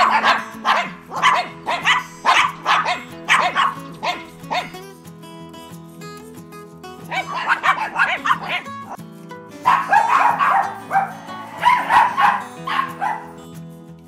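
A dog barking repeatedly, about two to three barks a second, in three runs with short pauses between. Steady background music plays beneath.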